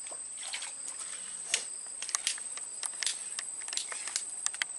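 Insects drone at a steady high pitch. From about a second and a half in, a scatter of short, sharp splashes and flicks comes from a hooked snakeskin gourami struggling at the surface as it is pulled from the water.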